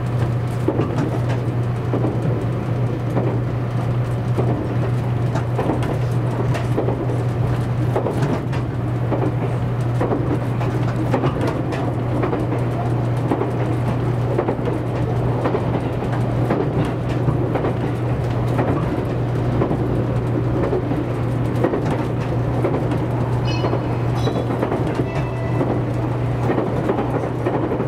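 Running noise heard inside the passenger cabin of a JR Kyushu 783-series electric limited-express train at speed: a steady low hum under a rushing rumble, with scattered clicks and knocks from the track. A few faint high tones come in near the end.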